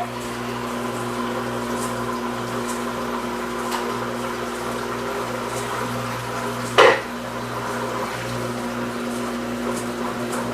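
Electrolux LT15F washing machine in its spin cycle, a steady hum with faint scattered ticks and one short louder knock about seven seconds in. This is the spin noise that the owner puts down to the rear suspension rod, the basket bouncing on its support, and it is practically unchanged after his repair attempt.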